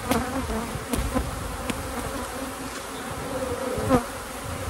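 Honeybees buzzing steadily over an open hive, with a few sharp clicks in the first two seconds as a metal hive tool prises a brood frame loose and it is lifted out.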